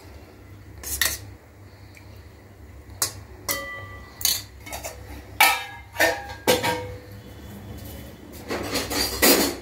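Kitchen dishes and utensils clinking and knocking as they are handled: a string of separate clinks, some ringing briefly, with a quicker run of clatter near the end.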